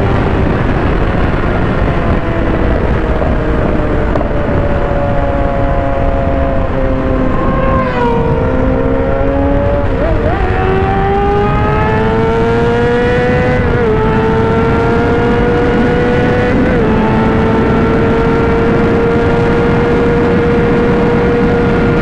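Inline-four 600-class sport bike engine running hard at highway speed under heavy wind noise. Its note climbs steadily, with brief dips about 10, 14 and 17 seconds in. A second sport bike, a Yamaha R6, passes about six to eight seconds in, its note falling as it goes by.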